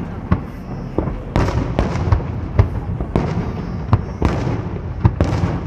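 Fireworks salute going off: a rapid, irregular series of sharp bangs, roughly a dozen in a few seconds, over a steady background rumble.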